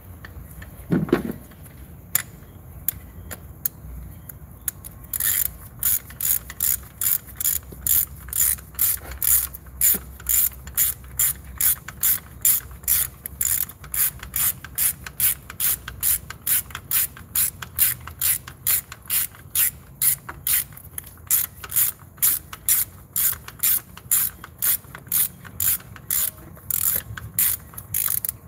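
A ratchet wrench on an extension and spark-plug socket is swung back and forth, clicking about twice a second as it runs a new spark plug down into the cylinder head. There is a brief handling knock about a second in, and the clicking starts about five seconds in.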